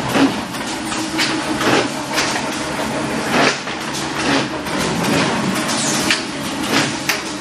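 Corrugated boxmaker with vertical drop stacker running: a steady machine hum broken by frequent sharp clacks, roughly one or two a second.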